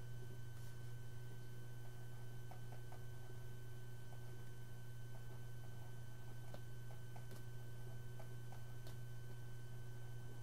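Steady low electrical hum with a faint thin high whine over it, and a few faint scattered ticks.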